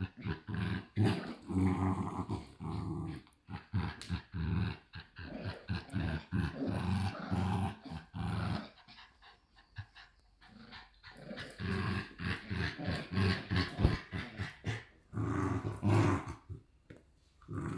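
An adult Shiba Inu and a Shiba Inu puppy growling together in play while tugging at a rope toy, in low, rattling bursts. The growling drops away for a couple of seconds about halfway through, then starts again.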